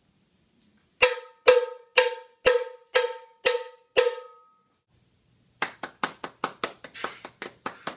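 A hand-held cowbell struck seven times at an even beat of about two a second, each hit ringing briefly. After a short pause, a fast run of hand claps at about six a second.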